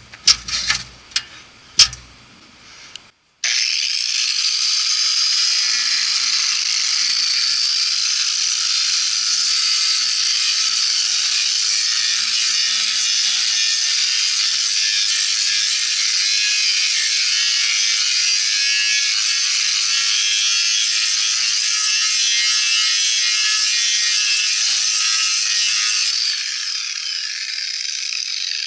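A few knocks, then a wire-feed (MIG) welder's arc crackling and sizzling steadily through a long bead on thin sheet steel, easing a little near the end. The welder afterwards judges his wire speed set a little too fast.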